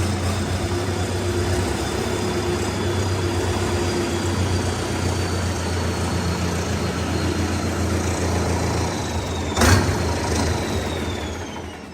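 Sonalika RX 60 tractor's diesel engine running steadily, with a faint high whine that falls in pitch. There is a single sharp knock near the end, then the sound dies away.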